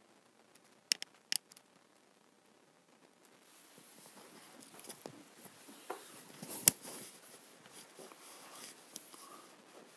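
Two sharp clicks about a second in, then quiet classroom noise: pencils on paper and rustling pages, with scattered small knocks and one sharp knock in the middle.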